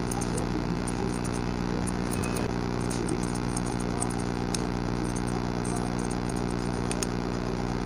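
Steady machine hum throughout, with a few faint, crisp snips of barber's scissors cutting hair over a comb.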